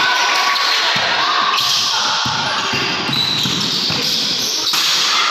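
Basketball dribbled and bounced on a wooden gym court during play, a few sharp bounces standing out over the echoing noise of players' and onlookers' voices in a large hall.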